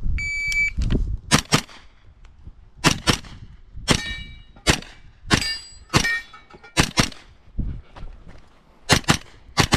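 Shot timer's start beep, then a JP GMR-15 pistol-calibre carbine firing about sixteen shots, mostly as quick pairs. Several shots are followed by a brief metallic ringing, steel targets being hit.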